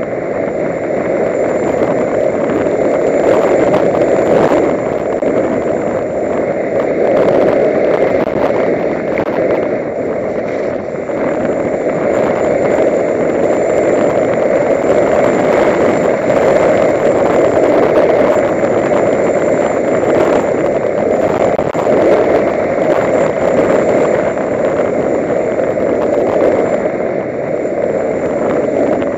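Steady rushing noise of downhill skiing: wind on the camera's microphone mixed with the scrape of carving skis (Laser SL) on packed snow.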